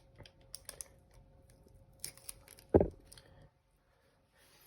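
Small clicks and light rustles of hands handling packaging and a boxed guitar pedal, with one dull thump just past halfway as something is set down.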